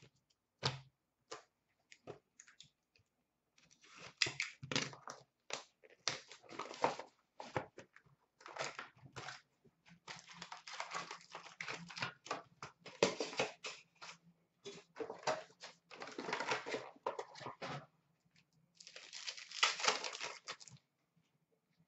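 Hockey card boxes and packs being torn open and handled: irregular crinkling and tearing of pack wrappers and cardboard. A few separate clicks come first, then the rustling goes on in bursts for most of the rest.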